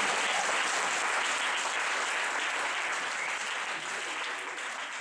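Audience applauding as the testimony ends, the clapping slowly dying down toward the end.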